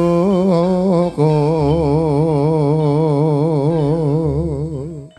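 A voice singing Javanese chanted narration: a short held note, then one long note of about four seconds with a wide, even vibrato, which fades out near the end.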